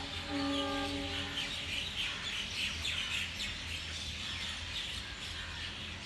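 A large number of birds chirping together, a dense chorus of many short overlapping calls.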